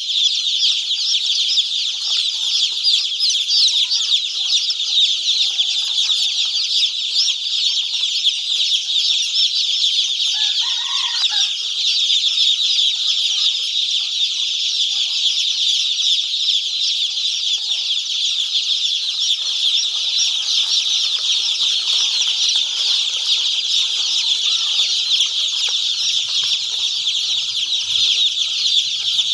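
Many young poultry chicks peeping at once in a dense, steady, high-pitched chorus. A single lower call stands out briefly about eleven seconds in.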